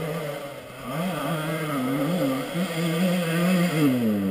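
Dirt bike engine running with the throttle worked: the revs rise and fall in a few quick blips, hold steady for about a second, then drop away near the end.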